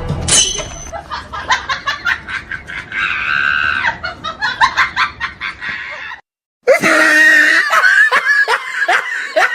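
Laughter sound effects: a rapid run of laughing that cuts off about six seconds in, then after a short silence a second, louder, shrill laugh in quick bursts, each falling in pitch.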